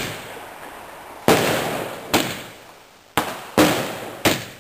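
Fireworks exploding: about five sharp bangs at irregular intervals, each fading away over a second or so.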